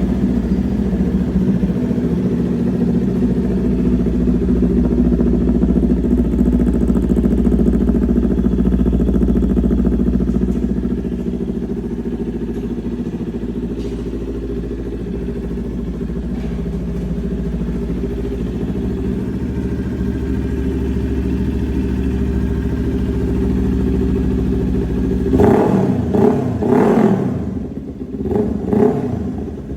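Kawasaki Ninja H2's supercharged inline-four on a full exhaust system, idling steadily, then revved in a few quick throttle blips near the end.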